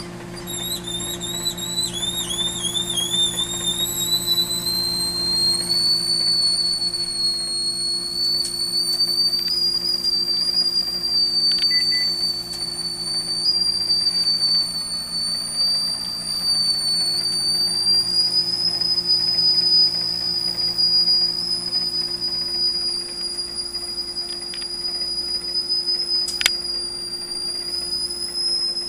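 A potato cooking in a microwave oven whistles at a high pitch as steam escapes through its skin, over the oven's steady low hum. The whistle wavers for the first few seconds, then holds a nearly steady note.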